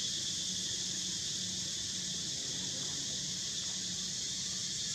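Steady high-pitched insect chorus droning without a break, over a faint even low hum.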